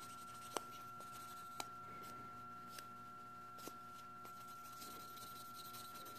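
Faint rubbing of the gray shine side of a multi-sided nail buffer over a gel nail, with a few light taps.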